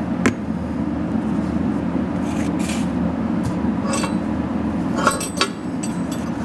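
A few light metallic clinks and rattles as the cast-iron end bell of an antique electric motor is handled and tipped, with a dropped set screw loose inside it. A steady low hum runs underneath.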